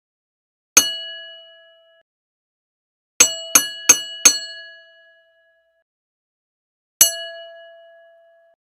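Boxing ring bell struck: one ring about a second in, then four quick strikes in a row, then another single ring near the end. Each strike rings a clear metallic tone that dies away over about a second and a half.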